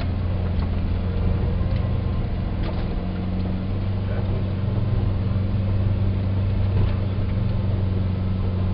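VW bus engine running at a steady speed, heard from inside the cab: an even, low drone with a few faint clicks and rattles.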